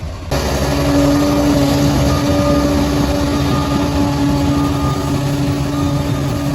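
Heavy diesel engine of a bulldozer running steadily, coming in suddenly just after the start.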